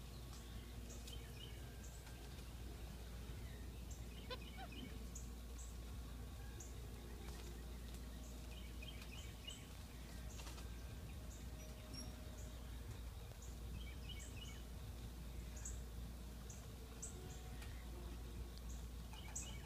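Faint short high-pitched chirps, repeating every second or so, over a steady low hum.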